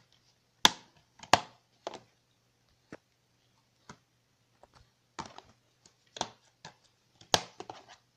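Plastic DVD cases being handled: sharp plastic clacks and clicks, the two loudest about a second in, then scattered lighter clicks and a cluster of taps near the end.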